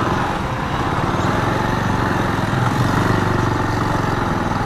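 Bajaj Avenger 220's single-cylinder engine running steadily at low speed, with road and wind noise around it.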